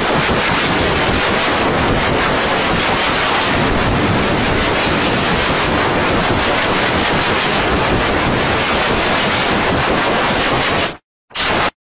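Loud, harsh noise like blaring static, even and without any pitch or beat. It cuts off sharply about eleven seconds in, then comes back in a short burst just before the end.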